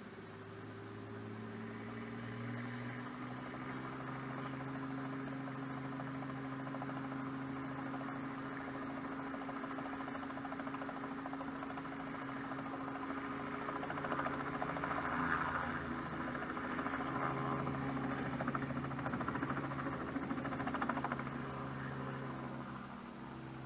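Robinson R44 helicopter running at the hangar and lifting off: a steady engine hum with a fast rotor beat that grows louder in the second half, then begins to fade near the end as it climbs away. Heard muffled from inside a car.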